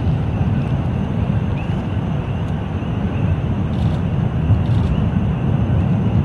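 Steady low roar of Kilauea's fissure 8 lava fountain erupting from a ground crack.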